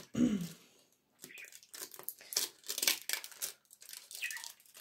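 Foil wrapper of a processed cheese portion being peeled off by hand, a string of sharp crinkling and tearing crackles.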